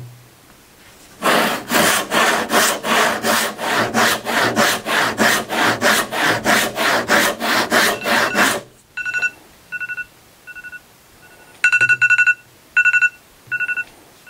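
A hand rip saw of about 5.5 points per inch rips a board along the grain in fast, even strokes, about three a second, for some seven seconds, then stops abruptly. A timer then beeps repeatedly in short bursts, marking the end of a 30-second timed cut.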